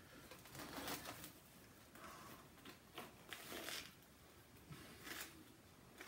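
Faint chewing and crunching of a Flaming Hot Cheetos-coated soft-shell crab sandwich, a few soft crunches scattered through otherwise near silence.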